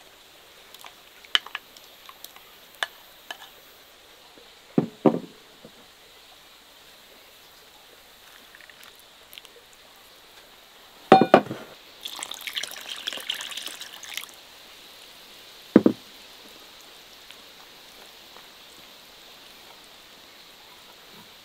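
Kitchen work: a few scattered knocks and clinks of dishes and utensils, the loudest a ringing clink about eleven seconds in, followed by a brief rush of pouring liquid lasting about two seconds, then one more knock.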